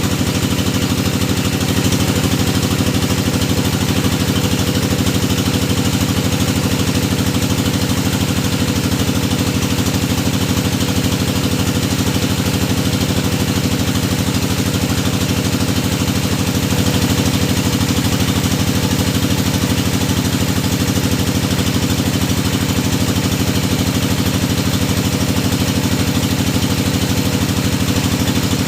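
Engine of a hydraulic deep-well drilling machine running steadily at a constant speed.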